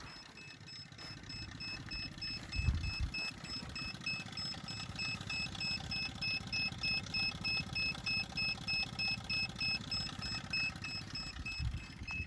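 Electronic alarm beeping rapidly and steadily, one high buzzer tone repeating about two or three times a second. A dull thump comes about two and a half seconds in.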